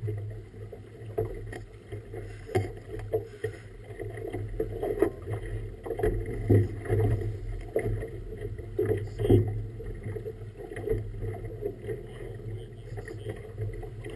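Choppy river water splashing and slapping against the hull of a small boat, in irregular strokes over a steady low rumble.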